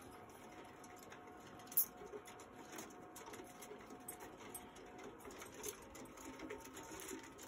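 Sugar gliders moving about their wire cage: a steady scatter of small clicks and scratches, with one sharper click about two seconds in.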